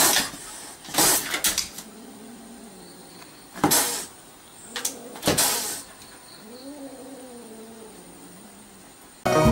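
Cat meowing in a few drawn-out calls, the longest near the end, between several short scuffing noises.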